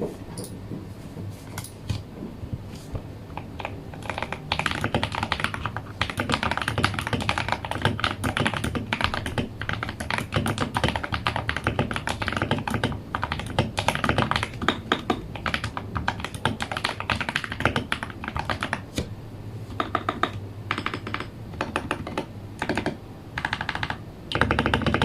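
Typing on a Royal Kludge RK71 mechanical keyboard with lubed Feker Holy Panda tactile switches and Akko keycaps: a few scattered keystrokes at first, then a fast, continuous run of keystrokes from about four seconds in, breaking into short bursts with pauses near the end.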